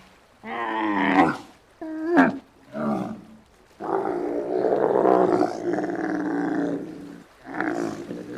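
Giraffe calling: a run of short pitched calls, then one long, rougher call of about three seconds starting about four seconds in, and another short call near the end.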